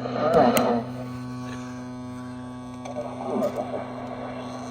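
Crosley BC-654-A radio's speaker giving a steady electrical hum and buzz. Brief snatches of a voice come through from the receiver at the start and again about three seconds in.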